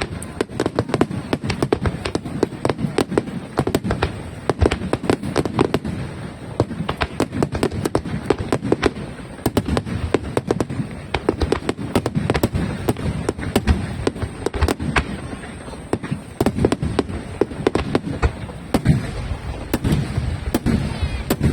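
Aerial fireworks display: a rapid, unbroken barrage of shell bursts, several bangs a second with crackle over a low rumble.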